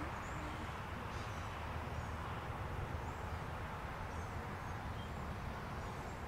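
Steady outdoor background noise, a low rumble under an even hiss, with a few faint, short high chirps scattered through it.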